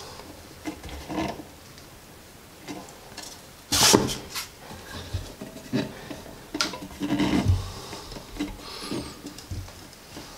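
Metal bar clamp being tightened by hand, its wooden-handled screw turned against a 2x4 to draw an undermount sink up tight under the countertop: irregular rubbing and clicking of the screw and wood, with a sharp knock about four seconds in and a few more around seven seconds.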